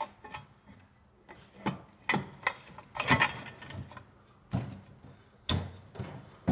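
Aluminum ladder-rack crossbar knocking and clanking against the square aluminum uprights as it is worked down into place by hand. About a dozen sharp knocks and rattles come at irregular intervals, the loudest around three seconds in.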